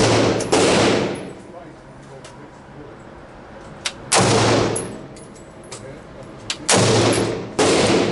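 AR-15 rifle fired in single shots: a quick pair at the start, one about four seconds in, and another pair near the end, each ringing out in the echo of an indoor range. Fainter sharp cracks fall between the shots.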